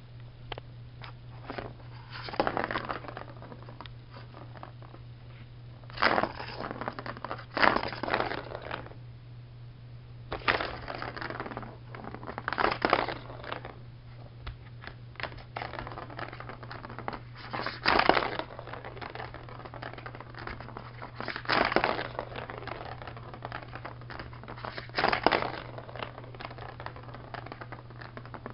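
A cat playing with a Turbo Track scratcher toy: irregular bursts of scratching and scraping, about a second each, every few seconds, over a steady low hum.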